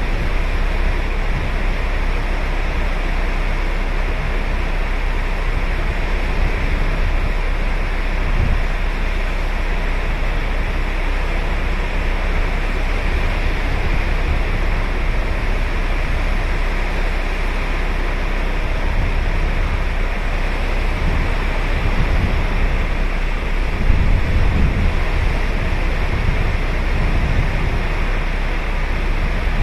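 Ocean surf breaking and washing up a beach in a steady, continuous wash, with a few low rumbles of wind buffeting the microphone near the end.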